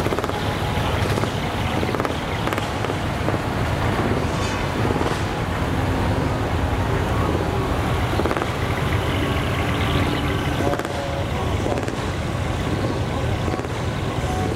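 Diesel engines of large decorated trucks idling steadily, with faint voices around them.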